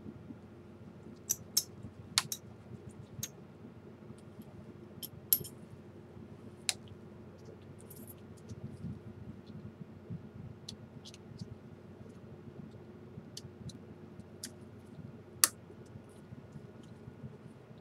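Scattered small sharp clicks and taps of a repair tool and small parts being handled inside an opened tablet, loudest in the first few seconds and once near the end, over a faint steady hum.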